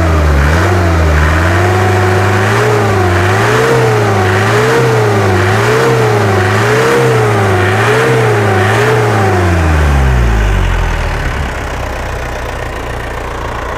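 Isuzu Panther 2.5 four-cylinder direct-injection diesel engine revved up, then blipped on the throttle in even pulses about once a second before dropping back to idle near the end.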